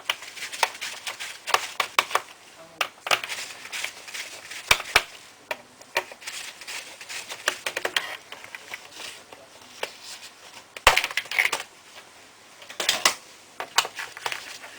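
Irregular clicks and knocks of a laptop's plastic case and parts being handled during disassembly, with louder clusters about eleven and thirteen seconds in.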